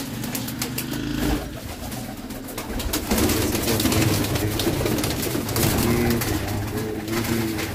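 Domestic pigeons cooing in a loft, several birds' low, wavering coos overlapping throughout.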